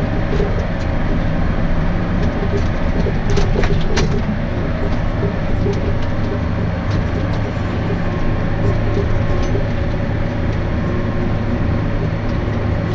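Farm tractor's diesel engine working hard under load, pulling a full grain cart up a muddy slope, heard from inside the cab; a few sharp knocks and rattles sound about three to four seconds in.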